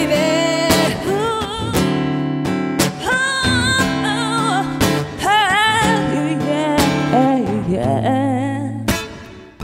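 A singer-guitarist performing live, singing long held notes with a wide vibrato over strummed and plucked guitar chords. The playing drops away near the end.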